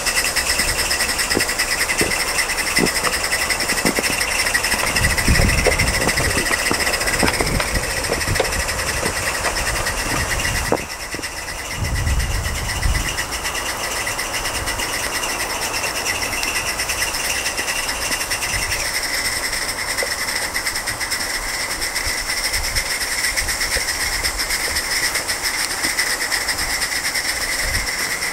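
Mamod Double Fairlie live-steam model locomotive running, with a continuous hiss of escaping steam carrying steady high whistling tones. Low rumbles come and go twice in the first half, and the sound changes abruptly about eleven seconds in.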